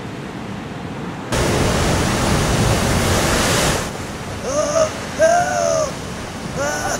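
Ocean surf sound effect: a steady rush of breaking waves that swells into a loud wave crash from about a second in to about four seconds. After the crash it drops back, and a series of short, high-pitched arching calls comes in over it.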